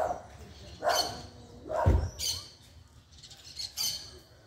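A dog barking: several separate barks, roughly a second apart, some of them sharp and high-pitched.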